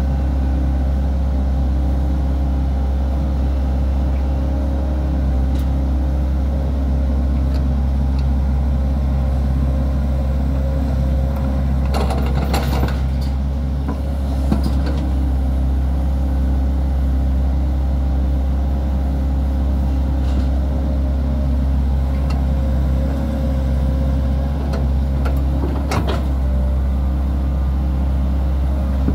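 Sany SY135 crawler excavator's diesel engine running steadily under load as the boom and bucket work, with a few brief clatters about halfway through and again near the end.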